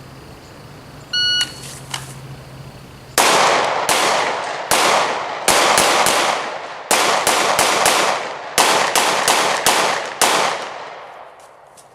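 A shot timer gives one short start beep. About two seconds later a pistol fires about fifteen shots in quick clusters over about seven seconds, each shot ringing out briefly.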